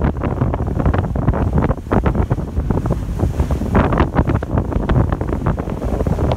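Wind buffeting the microphone in loud, uneven gusts aboard a cruise ship under way.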